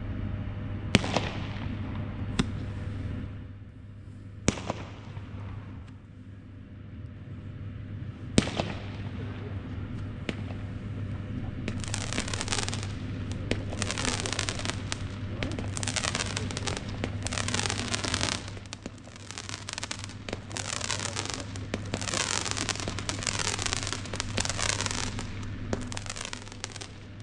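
WECO Ironheart compound firework cake firing: a few sharp, separate bangs in the first eight seconds. From about twelve seconds in comes a quick run of shots, roughly one or two a second.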